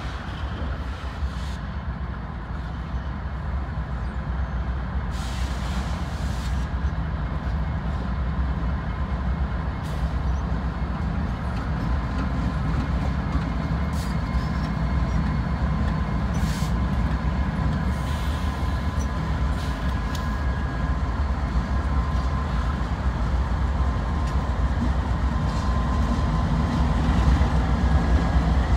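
Freight diesel locomotives running at slow speed as they approach and pass, a deep low rumble that grows gradually louder, with a faint steady whine above it.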